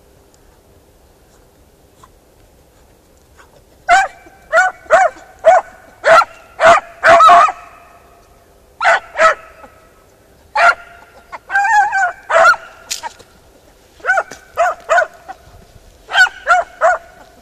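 Beagle-harrier hounds giving tongue: short, high, yelping bays in quick runs of two to seven, starting about four seconds in, as they work a scent.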